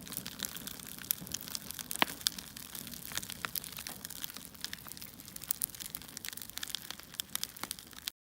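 Crackling fire: a steady hiss with dense, irregular pops and snaps, a few louder cracks among them, cutting off suddenly near the end.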